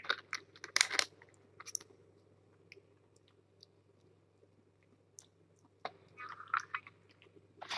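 Kittens chewing wet cat food from a plate: soft, scattered smacking and clicking mouth sounds, with a louder one about a second in and a short cluster near the end.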